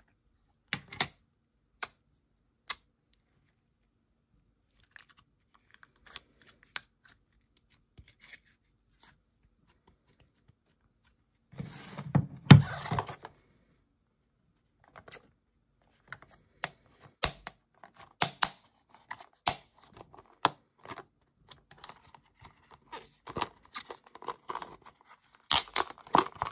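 Plastic slime containers and packaging of a DIY slime kit being opened and handled: scattered clicks, taps and crinkles with quiet gaps, a louder burst of rustling about twelve seconds in and busier clicking and crinkling in the last third.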